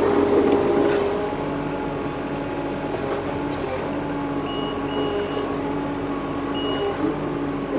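Engine of a construction machine running steadily with a continuous hum, a little louder in the first second. Three short high beeps sound in the second half.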